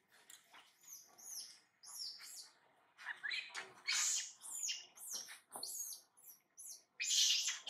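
Infant long-tailed macaque crying: a run of short, high-pitched squeals, each sliding down in pitch, loudest about four seconds in and again near the end.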